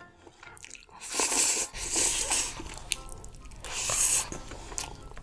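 Jjapaguri instant noodles being slurped off chopsticks in three long, loud slurps.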